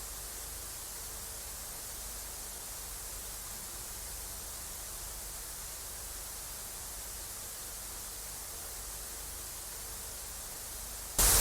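Steady, even static hiss: dead air on an emergency alert broadcast. A loud burst of noise cuts in just before the end.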